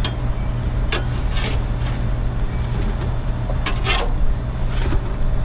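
Metal spatula clicking and scraping on a hot flat-top griddle as toasted crunchwraps are lifted off, a handful of short strikes over a steady low rumble.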